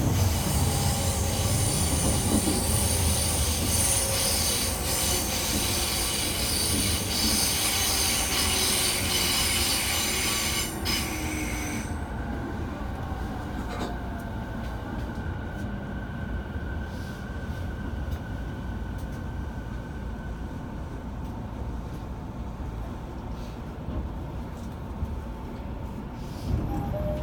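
E217-series electric train running, heard from inside the car: wheel and rail noise with a high squeal that stops about twelve seconds in, and motor whine falling in pitch as the train slows.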